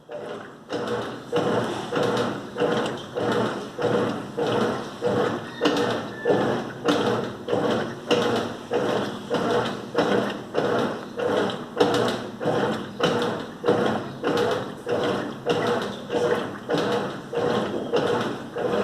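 Colormaq LCA11 top-loading washing machine agitating a load with a comforter in it: the agitator swishes the water back and forth in an even rhythm of about one and a half strokes a second.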